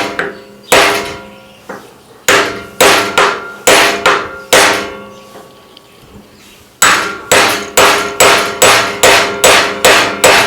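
Hammer blows on metal with a short metallic ring after each: about six strikes, a two-second pause, then a faster run of about ten, as the winding is knocked out of a microwave oven transformer.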